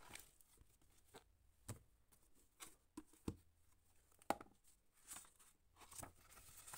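Faint rustling and flicking of paper as a book's pages are turned by hand, with a few soft page snaps, the sharpest about four seconds in.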